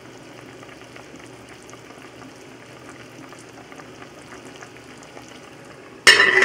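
Pot of curry chicken boiling steadily, a continuous bubbling hiss with small pops. About six seconds in, a metal pot lid clatters loudly as it is set on the pot.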